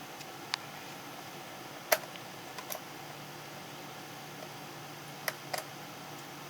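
A few short, sharp clicks and taps of the plastic hard-drive bay cover on a laptop's underside being handled and worked off, the loudest about two seconds in and a close pair near the end, over a faint steady hum.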